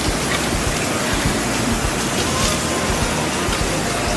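Meat sizzling on a flat-top griddle, a steady hiss like rain, with faint voices in the background.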